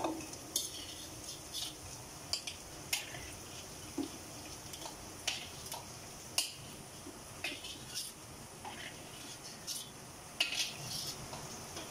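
Metal tongs clicking and clinking against a steel wok and a plastic bowl as fried kikiam pieces are lifted out of the oil, in many short irregular knocks over a faint steady sizzle of the frying oil.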